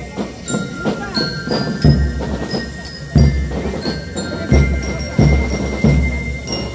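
Marching drum-and-lyre band (Peruvian banda de guerra) playing: heavy bass-drum strokes under snare drumming, with bell lyres ringing short high metallic notes over the beat.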